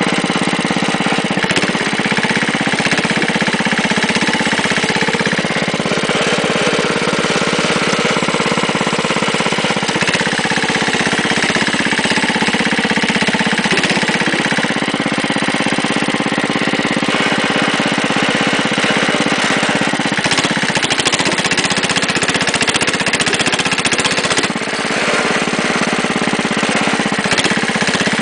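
Wheel Horse garden tractor's engine running steadily as the tractor is driven along.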